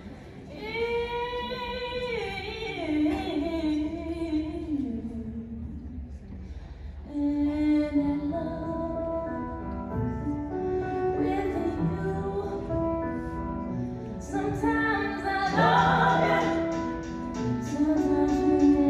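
Recorded music with a woman singing long, wavering held notes. The voice then gives way to sustained instrumental chords, and a light regular beat comes in near the end.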